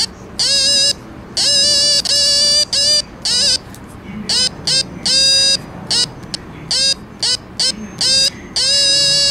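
Electronic music pencil sounding a string of buzzy electronic beeps as its graphite tip taps points on a pencilled graphite line, completing the circuit through the player's hand. The beeps come in quick succession, some short and a few held for about a second, and each scoops up in pitch as it starts. The pitch is set by where the tip touches the drawn line, which is how the notes of a scale are found.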